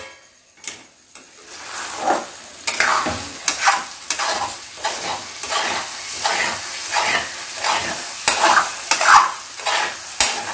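Metal spoon stirring instant noodles in a metal kadai on a gas stove, scraping against the pan in regular strokes about twice a second, starting about a second and a half in.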